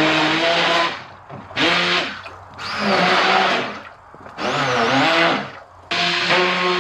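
Hand-held immersion blender mixing a bowl of liquid soap mixture, run in short pulses: it is switched on and off about five times. Its motor pitch wavers up and down as it churns.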